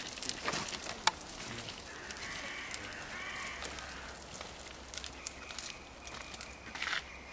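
Quiet woodland ambience with scattered light crackles and ticks. Faint distant calls waver in the background for a second or so, about two seconds in.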